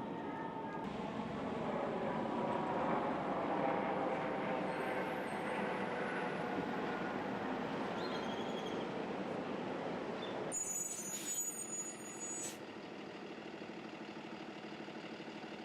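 Steady traffic noise from vehicles, dropping abruptly about ten seconds in to a quieter steady background.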